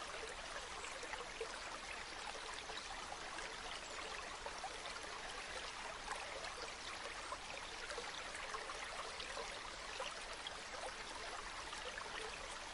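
Mountain waterfall: falling water rushing steadily, made up of many small splashes.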